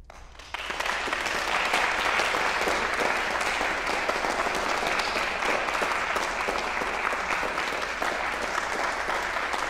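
Audience applauding, starting suddenly about half a second in and continuing steadily.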